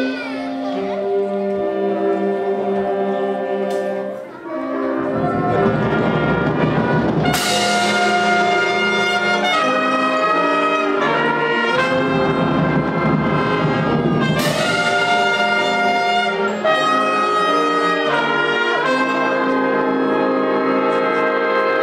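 High school concert band playing a piece led by brass: trumpets, trombones and horns holding chords over woodwinds. Twice, about seven seconds apart, a rising percussion roll swells into a cymbal crash with the full band.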